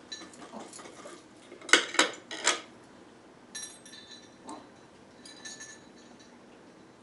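A knife clattering against dishware while an orange slice is cut for a cocktail garnish. Three sharp knocks come close together about two seconds in, followed by a few faint clinks.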